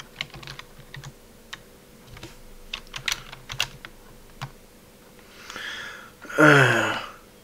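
Computer keyboard typing: a string of irregular key clicks over the first four and a half seconds. Near the end comes a brief man's vocal sound.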